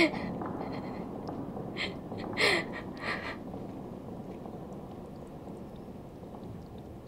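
A woman's short, breathy gasps, two of them about two seconds in, over a steady low rushing noise that slowly fades.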